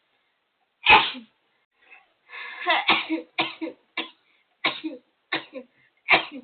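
A person in an uncontrollable sneezing fit. A hard sneeze comes about a second in, then a tighter cluster of explosive sneezes, then short sharp sneezes roughly every half second to a second.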